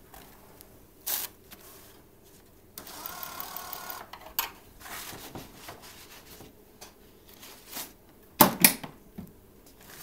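Vincit electronic paper towel dispenser being loaded: a short click, then about a second of its electric feed motor running, then paper rustling. Near the end the plastic cover snaps shut with two loud clacks.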